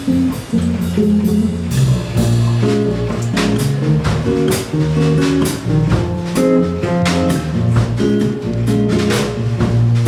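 Live rock band playing a song: strummed acoustic guitars over a bass guitar line, with a drum kit keeping the beat.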